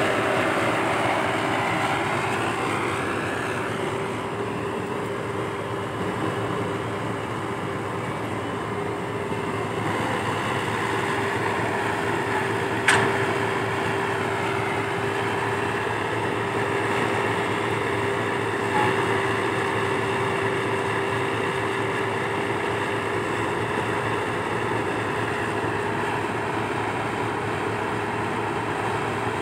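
Komatsu PC120-5 hydraulic excavator working, its diesel engine running steadily with a constant whine, while it loads soil into a dump truck. There is one sharp metallic knock about halfway through.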